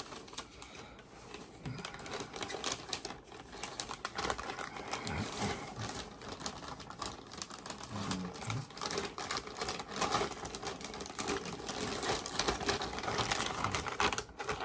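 MRE packaging crinkling and rustling in the hands, with dense irregular crackles and clicks, as the meal pouch is slid into the flameless ration heater sleeve.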